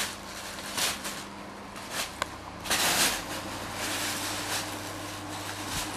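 Thin plastic bag crinkling and rustling in irregular bursts as a cat plays on it, the longest burst about three seconds in.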